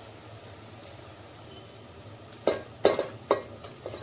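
Fried masala sizzling quietly in oil in a steel pot. About two and a half seconds in come several sharp knocks and plops as marinated chicken pieces are tipped in from a glass bowl.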